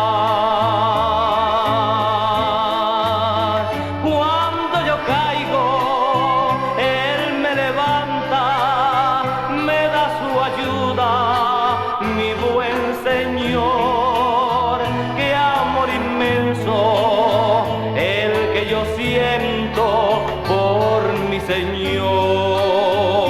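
Spanish-language Christian song music: a melody line with vibrato carried over a stepping bass line.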